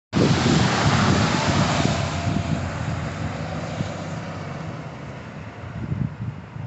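School bus's diesel engine running as the bus drives past close by, loudest in the first two seconds and then fading away.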